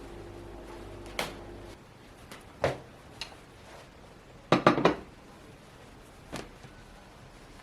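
Dishes and utensils being handled: separate clinks and knocks of hard kitchenware set down, with a quick cluster of three clatters about halfway through. A steady low hum stops a couple of seconds in.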